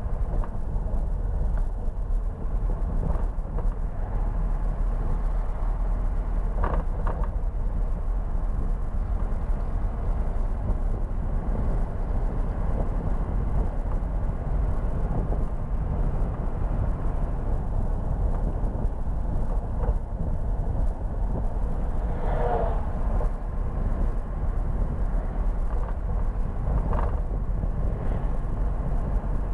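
Mercedes-Benz Atego truck's diesel engine and road noise heard inside the cab while driving at a steady speed: a steady low rumble, with a few brief higher-pitched sounds scattered through it.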